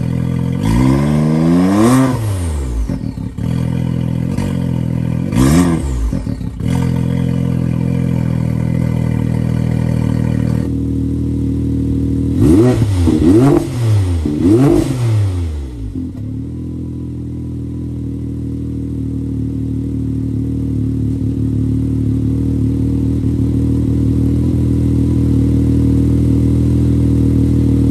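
Can-Am Maverick X3 Turbo's turbocharged three-cylinder engine, breathing through an Ironclad Industries Reaper catless downpipe and valved muffler, being revved in throttle blips: one longer rev near the start, a short blip, then three quick blips in a row, before settling to a steady idle for the rest of the time.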